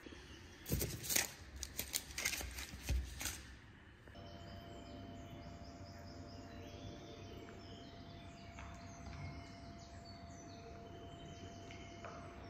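A few sharp knocks, then faint outdoor ambience with many short high chirps, likely birds, over a steady faint tone.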